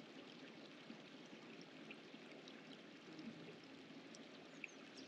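Near silence: a faint steady outdoor hiss with a few scattered tiny ticks.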